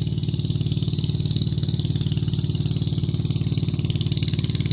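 A small engine running steadily at an even, unchanging speed, low-pitched and continuous.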